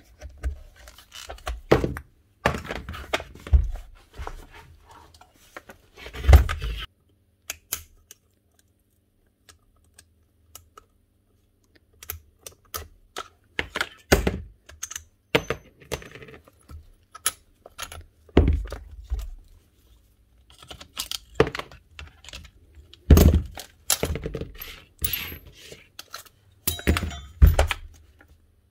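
Metal parts and hand tools clicking, knocking and clattering as a Makita hammer is taken apart: cover and screws coming off and parts set down on the bench. The sounds come in irregular bursts, with a quiet spell of a few seconds about a third of the way in.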